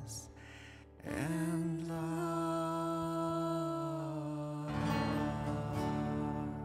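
Background music of long held notes, which dips briefly and comes back with a new chord about a second in, then changes chord again near the end.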